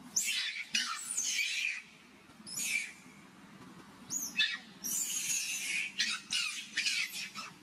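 Long-tailed macaque screaming in shrill, high-pitched squeals while being grabbed and wrestled by another macaque. The cries come in repeated bursts: a cluster in the first two seconds, one more, then a rapid run from about four seconds in.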